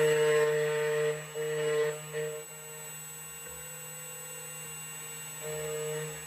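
CNC key cutting machine running as it mills a Toyota TOY48 key blank: a steady motor hum and whine, growing louder in short spells in the first couple of seconds and again near the end as the cutter works the metal.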